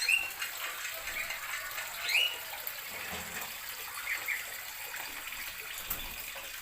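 Steady rushing of running water, with a few short, rising bird chirps: one at the start, one about two seconds in and a faint pair about four seconds in.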